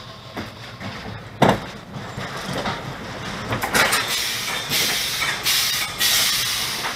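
Roller coaster train rolling slowly into the station on its brakes, with a sharp clunk about a second and a half in and smaller knocks after it. Near the end come several hissing bursts.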